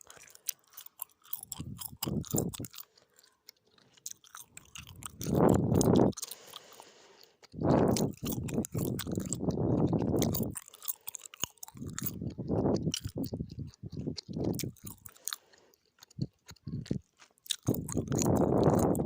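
Gum being chewed close to the microphone: irregular bursts of chewing with many sharp clicks, broken by short pauses.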